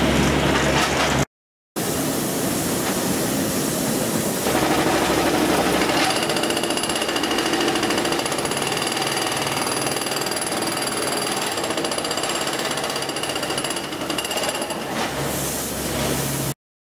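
Hydraulic breaker of a Brokk 800 demolition robot hammering continuously as it chips slag from a steel ladle's mouth. The sound cuts out briefly about a second in, with a steady high whine alongside it in the middle stretch, and it stops abruptly near the end.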